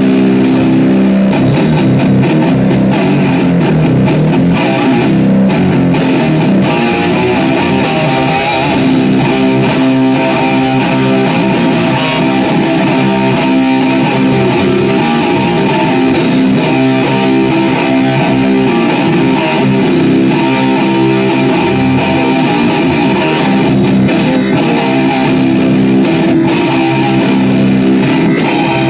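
Loud amplified rock jam of electric guitar and bass guitar playing together without a break.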